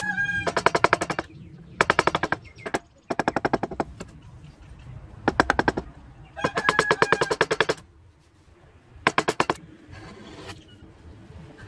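Wood chisel cutting into a carved wooden truck body, giving short bursts of rapid clicking, about a dozen clicks a second, each burst lasting about a second with pauses between.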